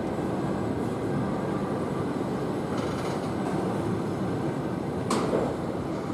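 Passenger coaches rolling slowly past along a platform as the train pulls into the station: a steady rumble of wheels on rails, with a sharp clack about five seconds in.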